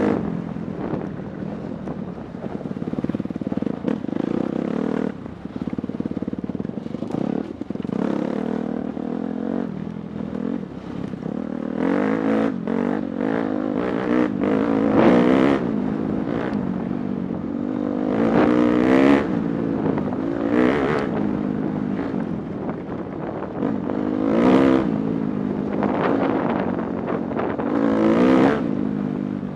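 Dirt bike engine ridden hard, its revs rising and falling with the throttle. It surges sharply several times in the second half.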